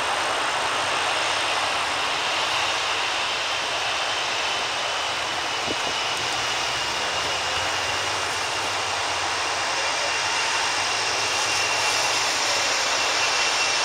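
Boeing 747-400's four Rolls-Royce RB211 turbofans running at low power as the airliner taxis after landing: a steady jet roar with a high whine that grows slightly stronger near the end.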